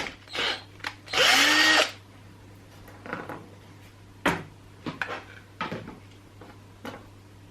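Power drill running in short bursts, one brief and then a longer one about a second in, its whine sliding up and down with the motor speed. After it come scattered light clicks and knocks of parts being handled.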